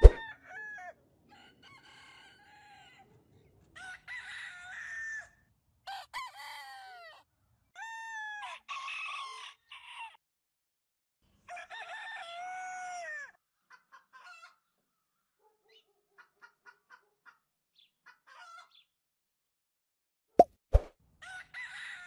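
A rooster crowing over and over, about five long crows in the first half, followed by faint short clucks. A few sharp, loud clicks come near the end.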